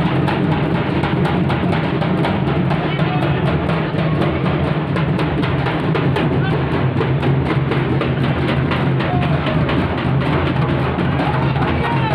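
Music driven by fast, steady drumming, with dense repeated drum strokes and a heavy low beat.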